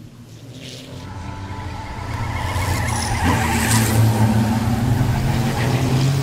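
A pack of Fórmula Truck racing trucks with diesel engines runs hard past the trackside microphones. A steady deep engine note grows louder over the first few seconds as the trucks come through, then holds loud.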